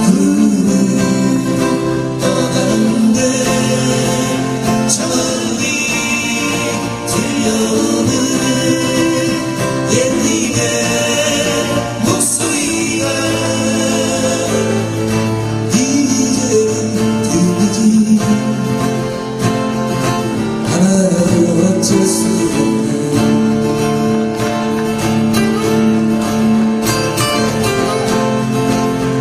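A man sings a Korean folk ballad over strummed acoustic guitar.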